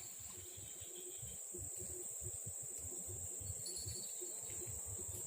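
Insects droning steadily at a high pitch, with a choppy low rumble underneath.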